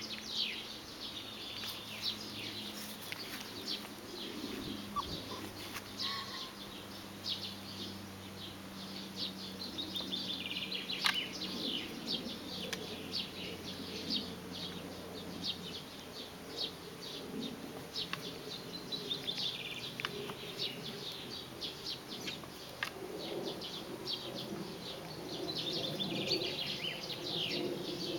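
Small songbirds chirping, many short high chirps running on without pause, over a faint steady low hum.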